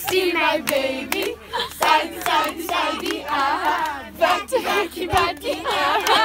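A group of children singing together while clapping their hands.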